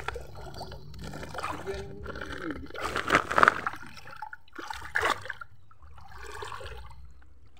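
Shallow water sloshing and splashing as people wade and move about in it, in irregular bursts, the loudest about three seconds in.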